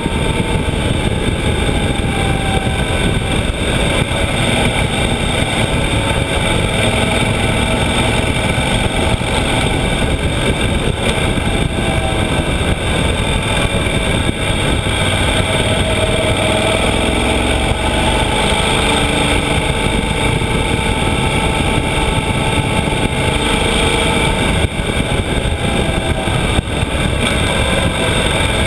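Yamaha XT1200Z Super Ténéré's parallel-twin engine running steadily under way, its pitch drifting slowly up and down, under a heavy rush of wind on the on-board microphone.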